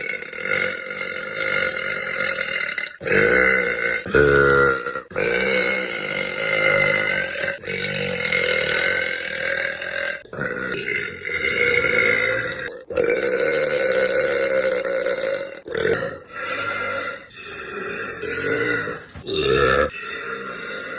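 A girl burping loudly: a string of long, drawn-out burps, one after another, with short breaks between them.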